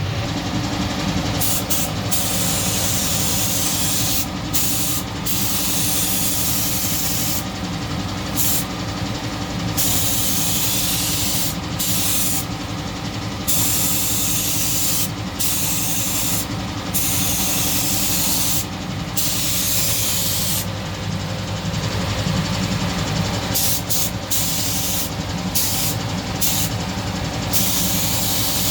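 Compressed-air spray gun hissing, triggered on and off repeatedly in bursts of one to three seconds, over the steady low hum of a running machine, likely the air compressor.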